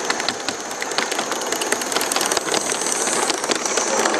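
Large-scale garden-railway model train running past, its wheels and running gear clattering on the track in a rapid, uneven stream of clicks over a steady high hiss.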